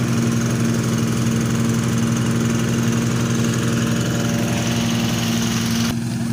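Engine of a portable rice thresher running steadily with an even hum. Just before the end the sound abruptly turns duller.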